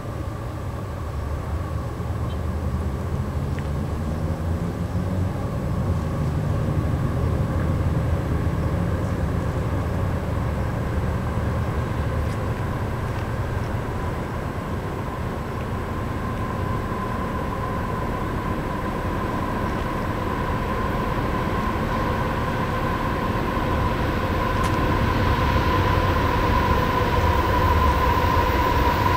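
An unseen CSX freight train approaching on diesel locomotive power: a low rumble that slowly grows louder, with a steady high whine that strengthens toward the end.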